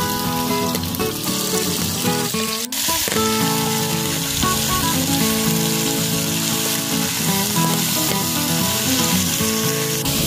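Cubed stewing meat sizzling as it sears in a hot cast-iron Dutch oven, stirred with a wooden spoon, with background music.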